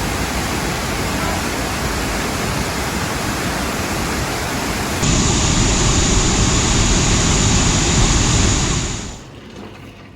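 Sekumpul waterfall, a steady loud rush of falling water. About five seconds in it cuts to a louder, hissier rush, which drops away abruptly near the end.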